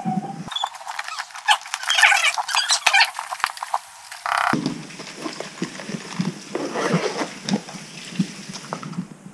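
Unboxing handling noise: a cardboard box and its paper packaging rustling and crinkling, with small clicks and knocks as the box is opened and a hard sunglasses case is taken out and handled on a table.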